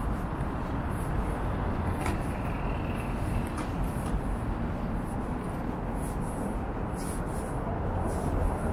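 Steady noise of road traffic on a busy main road, cars and heavier vehicles passing, with a few faint clicks.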